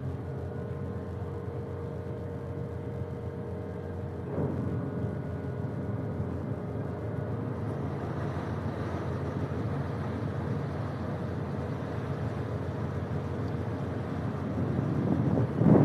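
Boat engine running with a steady low rumble and hum while under way. Wind buffets the microphone, loudest near the end.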